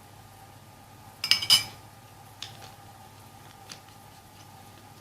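A spoon clinking against glassware: a quick cluster of clinks about a second in, then two faint ticks.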